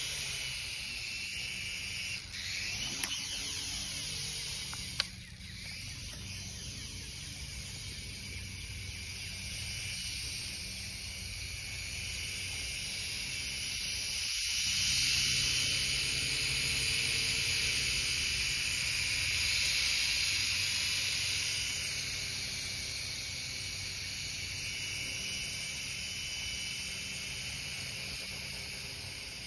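Small electric radio-controlled toy helicopter flying and hovering, its motor and rotors whirring with a steady high hiss. A few sharp clicks come in the first five seconds, and the sound swells a little midway.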